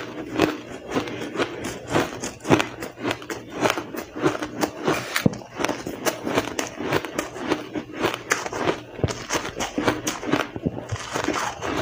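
Close-up chewing of powdery blender-crushed ice, a dense, irregular run of crisp crunches and crackles.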